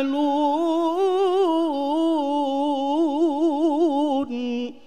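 Male qari's melodic Quran recitation (tilawah): one voice holds a long, drawn-out melismatic line with quick wavering ornaments. After a brief break just past four seconds, a short lower note ends the word 'tuhmalun', and the voice stops just before the end.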